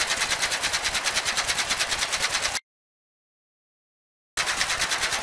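Rapid, evenly spaced clicking sound effect for animated tiles flipping, about nine sharp clicks a second. It stops dead about two and a half seconds in, drops to dead silence, and starts again for about a second near the end.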